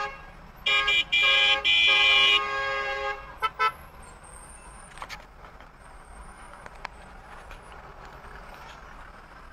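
Car horn honking in several blasts over the first couple of seconds, the longest about a second and a half, then two short toots. After that, steady street traffic noise.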